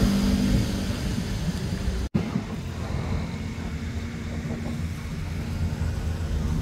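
A motor running steadily with a low hum, like an idling engine. The sound cuts out for an instant about two seconds in.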